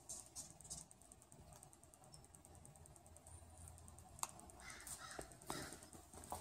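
Near silence: faint outdoor background with a few soft clicks in the first second and some faint short sounds from about four seconds in.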